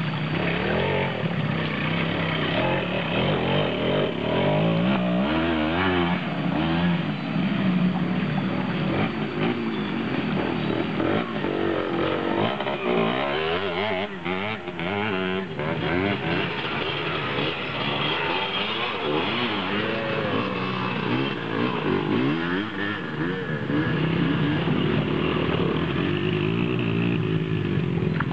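Vintage enduro motorcycle engines running under way, revving up and down so the pitch rises and falls repeatedly. Around the middle, several engine notes overlap and cross.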